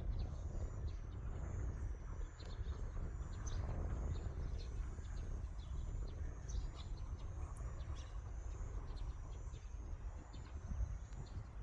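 Rural outdoor ambience: many short, high chirps of birds and insects over a steady low rumble.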